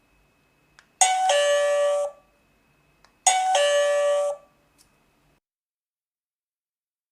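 An electronic two-note ding-dong chime, high note then lower note, sounds twice about two seconds apart. Each chime is preceded by a faint click.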